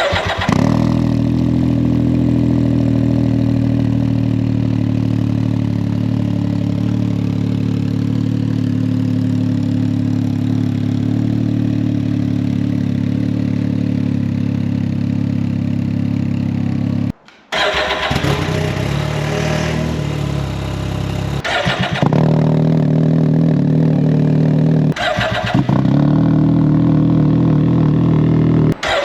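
Can-Am Ryker's Rotax 900 ACE three-cylinder engine, fitted with an RLS Core series exhaust that keeps a catalytic converter, starting and then idling steadily. After a short break it is revved several times, holding higher revs in louder stretches.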